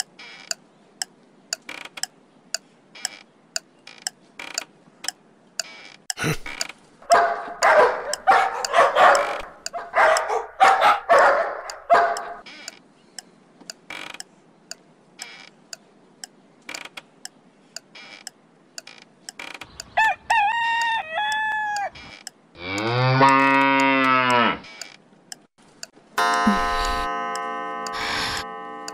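A clock ticking steadily, about twice a second. About twenty seconds in a rooster crows, followed at once by a cow mooing, and a few seconds later music begins with sustained notes.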